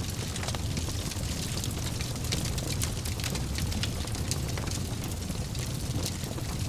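Wood fire burning in a fireplace: a steady low rumble and hiss with frequent sharp crackles and pops.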